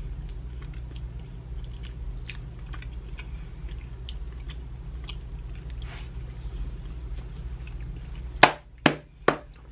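A person chewing a soft snack cake, with faint mouth clicks over a steady low hum in the room. Near the end come three sharp smacks about half a second apart, the loudest sounds in the stretch.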